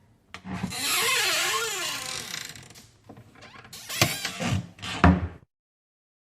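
House door effect: a latch click, then the door swings open with a wavering hinge creak for about two seconds. A few sharp clicks and knocks follow, ending in the loudest thud about five seconds in, as the door shuts.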